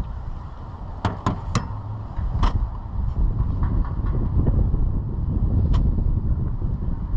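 Wind buffeting the microphone as a steady low rumble, with several sharp clicks: three in quick succession about a second in, another shortly after, and a single one later.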